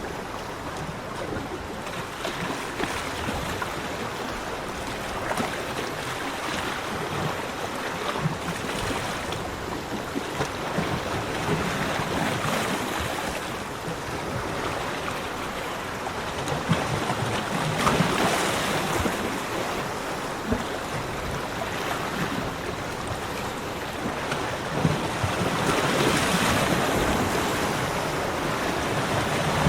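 Ocean waves breaking on a beach: a continuous wash of surf that swells louder three times, about twelve, eighteen and twenty-six seconds in, as waves come in.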